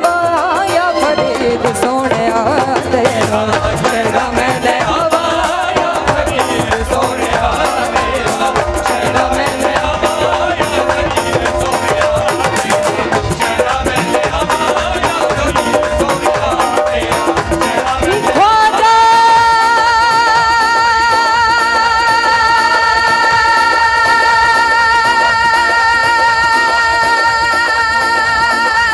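Live Punjabi devotional folk music with a woman singing over percussion. About 18 seconds in, a note slides up and is held high with a slight waver to the end.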